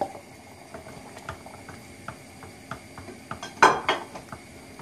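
Thick tomato-based pea and potato stew bubbling in a steel pot with many small pops, while diced potatoes are stirred in with a wooden spoon. A louder clatter of the spoon against the pot comes a little past three and a half seconds in.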